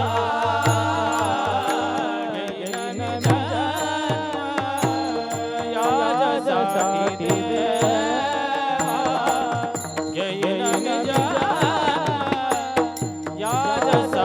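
Devotional kirtan music: a singer's ornamented, wordless vocal run over steady held accompanying notes and regular drum strokes.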